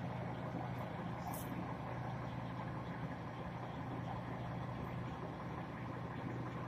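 Heavy truck's diesel engine idling steadily, a constant low hum, left to run so its air compressor builds pressure and refills the air suspension after a leveling valve replacement.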